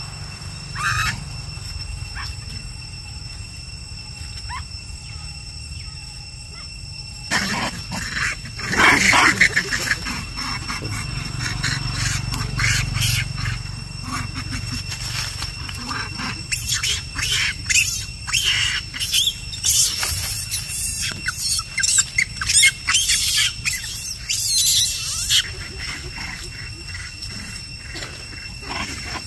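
A troop of macaques squealing and screeching in short, sharp bursts as they squabble. The calls start about seven seconds in, are loudest soon after, and come in clusters until a few seconds before the end.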